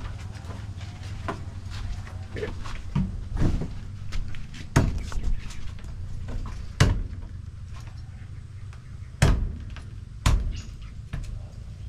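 A machete chopping and prying at a small spiky durian on wooden floorboards: lighter taps and scrapes, and about four sharp knocks of the blade and fruit against the boards.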